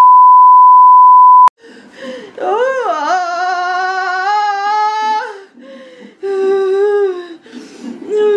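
A loud steady beep tone of the kind used to bleep out a word, cut off sharply about a second and a half in. Then a woman in labour cries out through a contraction in long, wavering wails: one long one, a shorter one, and a third rising near the end.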